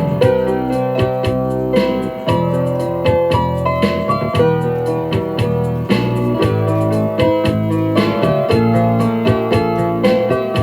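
Background music led by a keyboard with a steady beat.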